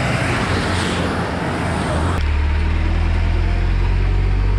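Road traffic passing, then an abrupt change about two seconds in to a steady, low hum from the Mitsubishi Fuso truck's diesel engine idling close by.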